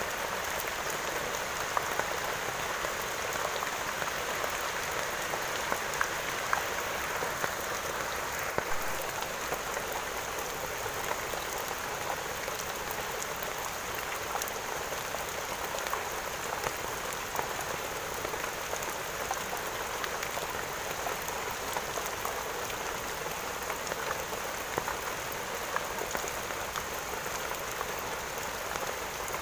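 Steady rain falling on a surface, a continuous hiss with many small drop patters scattered through it.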